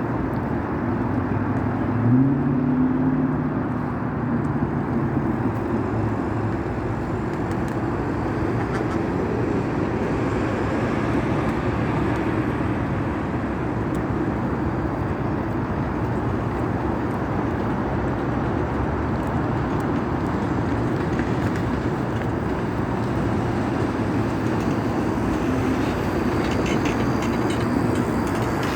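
Steady rumble of a vehicle in motion, with a pitched tone rising about two seconds in.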